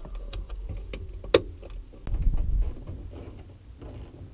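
Handling noise from a plastic speaker wiring connector being plugged together: small clicks and rustles over a low rumble, with one sharp click about a second and a half in.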